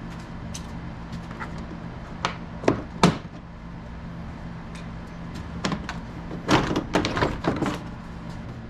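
Plastic trim clips popping and the interior trim panel of a Lexus GX470's rear swing door knocking as it is pulled off the door. Scattered sharp clicks and knocks, with a quick run of them about six and a half to seven and a half seconds in.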